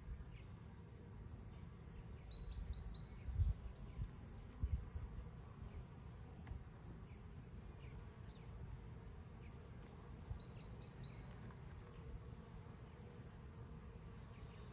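Steady high-pitched insect trilling from the surrounding grass, which stops near the end, over a low rumble. Two knocks a few seconds in come from wooden hive frames being handled in the open Langstroth hive box.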